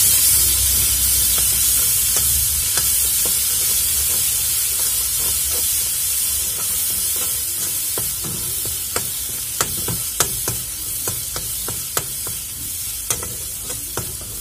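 Ground masala paste sizzling as it fries in hot oil in a kadai while a spatula stirs it. The sizzle is strongest at first and eases slightly; from about halfway through, the spatula scrapes and taps against the pan in sharp clicks.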